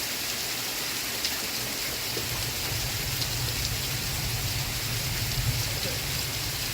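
Steady rain falling, a continuous hiss with scattered faint drop ticks. A low rumble swells underneath from about two seconds in.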